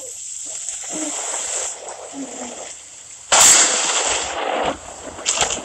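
Steady hiss of rain, then about three seconds in a sudden loud thunderclap that rumbles on for a second or so.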